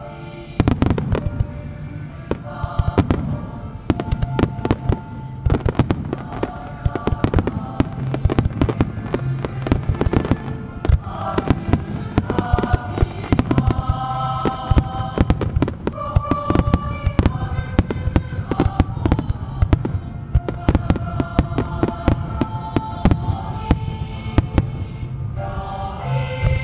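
Aerial firework shells bursting in quick, irregular succession, many sharp bangs close together, over music with sustained chords.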